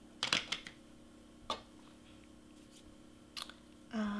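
Light clicks and rustles of cardstock paper flowers being handled and pressed into place on a cardstock letter: a quick cluster just after the start, then single ones about a second and a half and three and a half seconds in. Near the end a short hum from a woman's voice begins.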